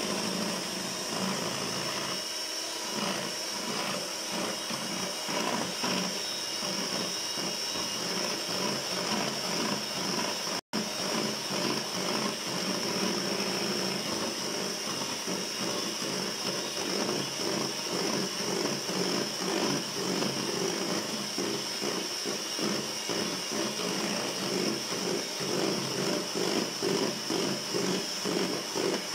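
Electric hand mixer running steadily with a high whine, its beaters whipping chantilly cream powder into cold milk in a bowl. The sound breaks off for an instant about ten seconds in.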